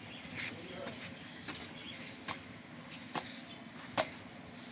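Butcher's knife cutting through a large slab of beef and knocking against a wooden stump chopping block: four short, sharp knocks a little under a second apart, starting about a second and a half in.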